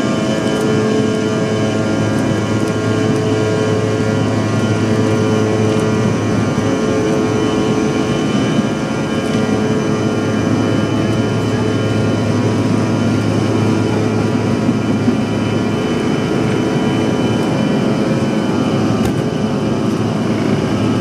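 Bombardier CRJ-1000's rear-mounted General Electric CF34 turbofan engines at takeoff thrust, heard inside the cabin during the takeoff roll: a loud, steady roar made of many steady whining tones over a dense rushing noise.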